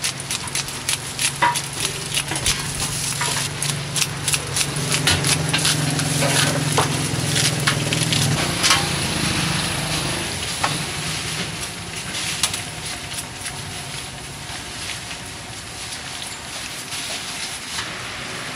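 Spring rolls deep-frying in a basin of oil: a steady sizzle with crackles, and sharp clicks and clinks of a metal strainer and utensils. A low steady hum runs under it and stops about eight seconds in.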